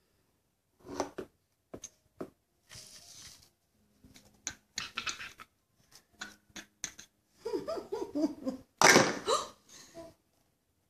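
Bursts of laughter, loudest about nine seconds in, with a few light sharp knocks earlier on.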